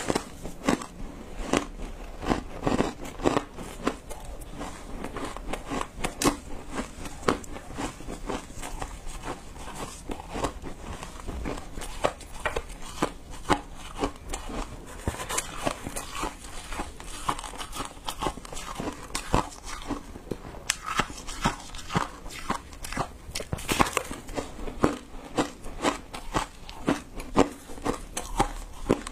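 Close-miked crunching of frozen matcha shaved ice being chewed, a fast, irregular run of crisp crunches and crackles.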